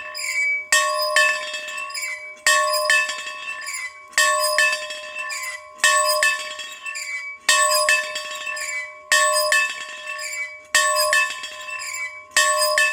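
A bell rung in a steady rhythm: pairs of strokes a fraction of a second apart, about one pair every second and a half, the ringing carrying on between them.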